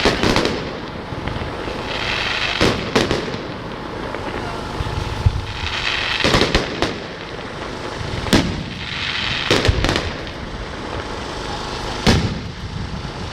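Fireworks display: aerial shells bursting in sharp bangs every one to three seconds, some in quick pairs, with stretches of crackling between the bursts.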